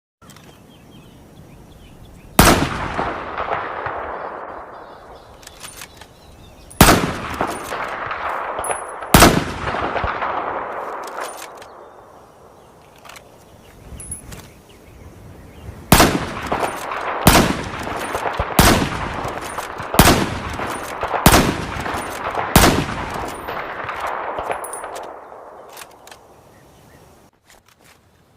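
M40 bolt-action sniper rifle shots: nine loud reports, each followed by a long echoing tail. Three come spread over the first ten seconds, then six follow about every second and a half, with small clicks between some shots.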